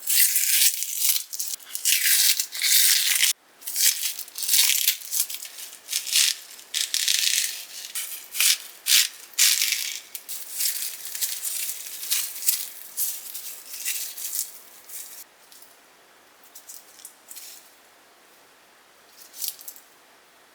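Crisp rustling and crackling of dry, papery material being handled, in quick irregular bursts that thin out after about fifteen seconds, with one last burst near the end.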